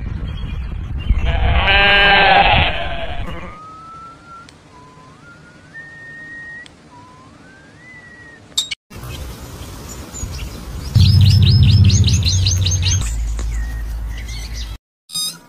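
Goat bleating, one long wavering bleat that is the loudest sound here. It is followed by a few short rising whistled notes, and later by a louder pulsing sound with a low hum lasting about two seconds.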